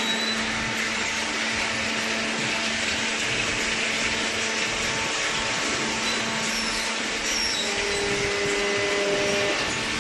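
Horizontal cardboard baler's electric motor and hydraulic pump running: a steady whir with a constant hum, and a higher tone joining about eight seconds in.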